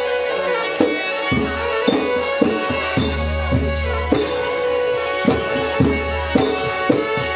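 Mamot ritual music of the Northern Khmer in Thailand: hand drums beat a steady pulse of about two strokes a second, with deep booming strokes, under a sustained, droning melody line.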